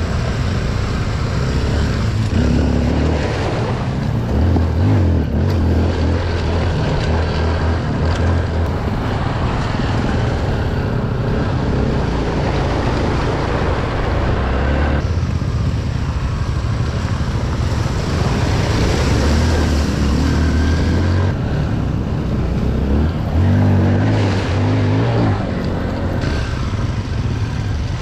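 Small single-cylinder dual-sport dirt bike engine running on and off the throttle, its pitch rising and falling, under heavy rushing noise from riding over a gravel riverbed.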